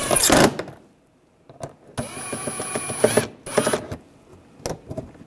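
Cordless impact driver running in short bursts to drive in and tighten bolts: a burst ending about half a second in, a longer one from about two to three and a half seconds in, a brief one after it, and a few clicks near the end.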